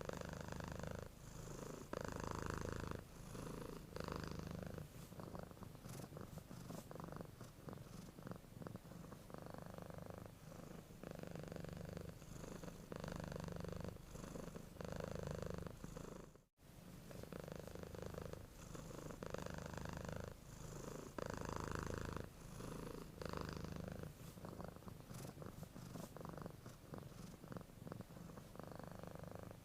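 Domestic cat purring steadily, the purr swelling and easing with each breath about once a second. It cuts out for an instant about halfway through.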